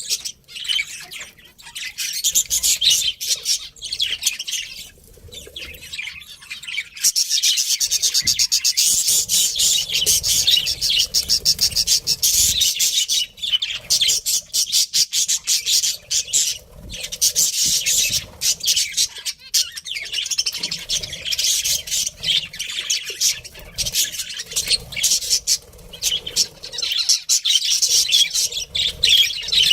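Budgerigars chirping and warbling in a fast, high-pitched chatter, sparser at first and near-continuous from about seven seconds in.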